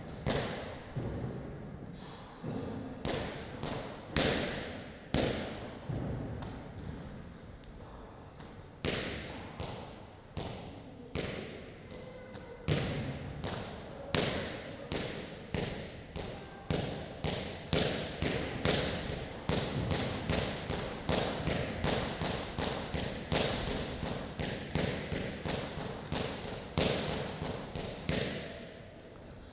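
A medicine ball is thrown again and again against a wall target during wall-ball shots, each throw a sharp thud ringing out in a large gym hall. The knocks come faster from about two-thirds of the way in.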